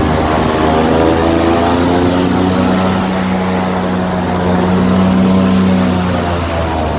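Airboat's engine and air propeller running loud and steady under way. The pitch drops about two seconds in as the throttle eases, then rises again near the end.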